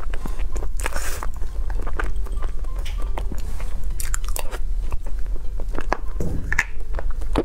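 Close-miked eating of a soft soy-milk cream box cake: a metal spoon clicking and scraping against the clear plastic box, with wet smacking and chewing mouth sounds, over a steady low hum.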